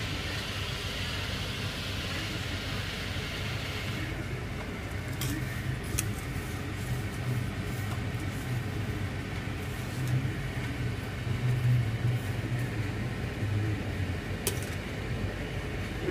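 A steady low hum runs throughout, with a few sharp clicks as metal chopsticks tap against a stainless steel colander of fried shallots.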